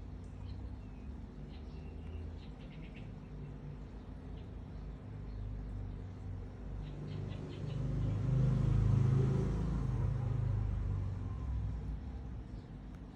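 A road vehicle passing, its rumble swelling to its loudest about two-thirds of the way through and then fading, with a few faint, high bird chirps early on and again just before the peak.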